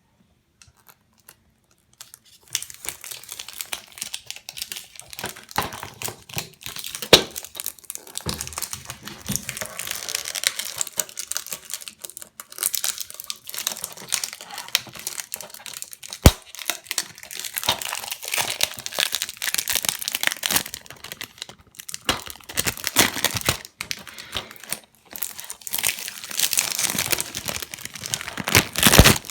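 Plastic shrink-wrap being torn and peeled off a DVD case: continuous crinkling and crackling, with a few sharp snaps, starting about two seconds in.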